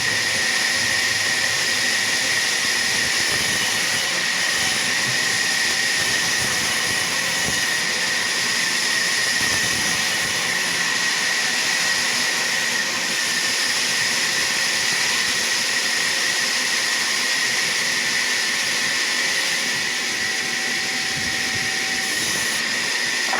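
Sawmill saw running steadily, with a constant high whine over a hiss.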